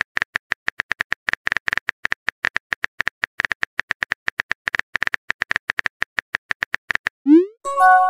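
Texting-app keyboard sound effect: rapid, even clicks of a message being typed out, one per letter. About seven seconds in, a short swoosh rising in pitch, then a chime of several tones as the message is sent.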